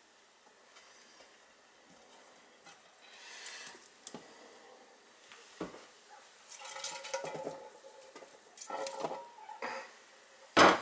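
Kitchen handling noise as meat is loaded into a large cooking pot: scattered light clicks and rustles, two short clatters with a slight metallic ring in the second half, and one sharp, loud knock near the end.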